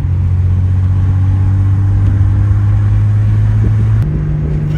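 A car's engine droning steadily while driving, its pitch stepping up about four seconds in.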